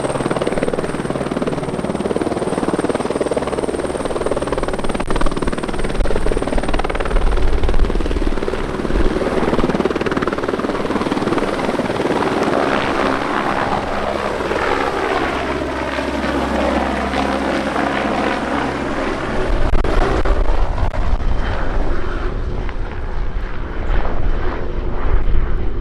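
Airbus Helicopters H125 (AS350B1 Ecureuil) with its Turbomeca Arriel 1D turboshaft, lifting off and flying away: loud rotor noise with a thin high turbine whine that fades after the first few seconds, the tone of the noise shifting as the helicopter climbs out.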